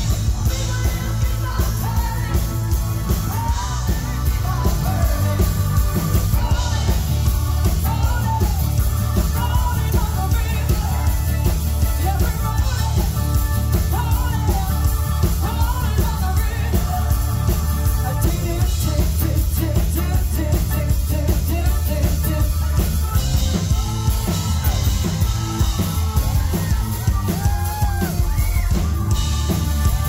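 Live rock band: a woman belting a strong lead vocal over electric guitar, bass guitar and drums, with a heavy bass low end.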